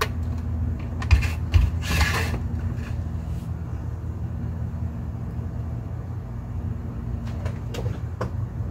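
Handling of a plastic modem/router as it is set down on a desk: two sharp knocks about a second in, then a short scraping rustle, with a few light clicks near the end. A steady low hum runs underneath.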